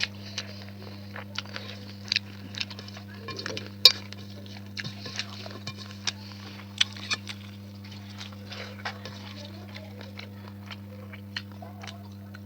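Eating sounds from a meal of rice and curry: scattered sharp clicks and clinks against a plate, with mouth sounds, the loudest click about four seconds in. A steady low hum runs underneath.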